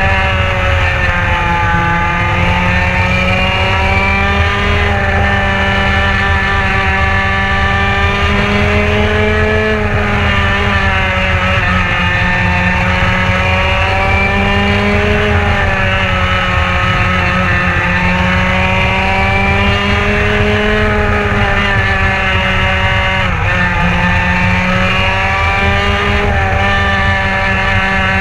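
Racing kart engine heard from on board, running hard throughout. Its pitch dips briefly and climbs again several times as the kart lifts for each turn of the oval and accelerates out onto the straight.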